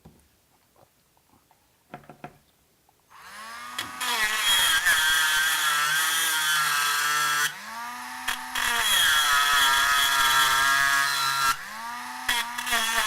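A few light handling clicks, then about three seconds in a Dremel rotary tool starts and cuts into the sealed plastic shell of an SDHC memory card, its pitch dipping and rising as the bit bites. Twice it runs quieter for a second or so when the bit comes off the plastic, then goes back to cutting.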